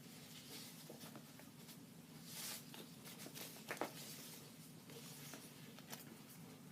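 Faint rustling of paper and packaging being handled, with a short rustle about two and a half seconds in and a few light taps.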